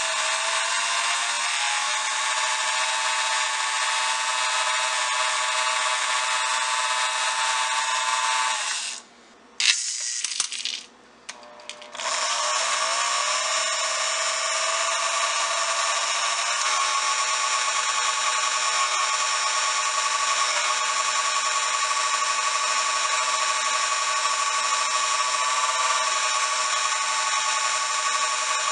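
Lionel postwar No. 97 coal elevator's small electric motor running steadily with a whine, driving the bucket chain, now fitted with a new top bearing plate to cure its noise. About nine seconds in it stops for a few seconds, then starts again, its pitch rising as it comes up to speed.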